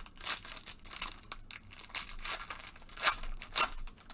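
Foil wrapper of a baseball card pack being torn open and crinkled by gloved hands: a run of irregular sharp crackles and rips, the loudest two a little after three seconds in.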